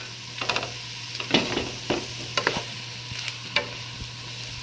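Brussels sprouts and garlic sizzling in butter and bacon drippings in a nonstick skillet, stirred with a wooden spatula that scrapes and clacks irregularly against the pan.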